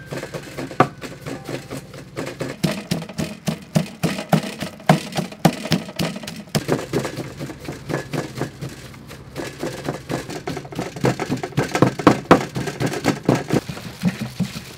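A wooden pestle pounding a mass of red chilies and seeds in a wooden mortar: a steady run of dull, wet knocks, about three a second, softer for a moment about two-thirds of the way through.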